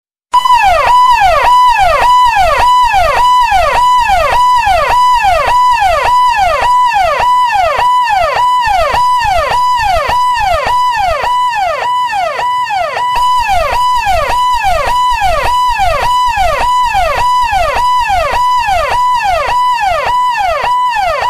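Electronic emergency-vehicle siren, loud and repeating without a break. Each cycle holds a high note, then drops in a quick falling wail, about two cycles a second.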